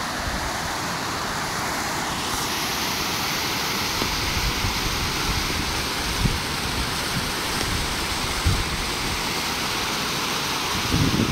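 Water pouring over a small concrete dam spillway and splashing into a rocky stream below: a steady rush that grows brighter and louder about two seconds in.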